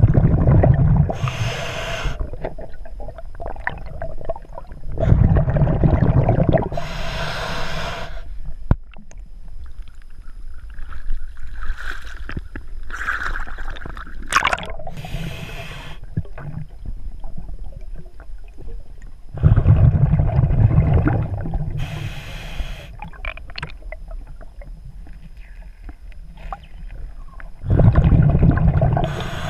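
Scuba diver breathing through a regulator underwater, heard through the camera housing: loud bursts of exhaled bubbles rumbling past, each followed by a hissing breath, about four cycles spaced several seconds apart. A quieter stretch in the middle carries small clicks and water sounds.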